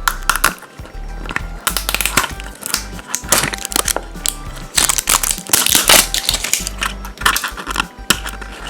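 Crinkling and tearing of a toy's plastic wrapper as a My Little Pony Fashems pack is opened by hand, in irregular rustly bursts that are busiest in the middle. Background music with a steady bass line plays under it.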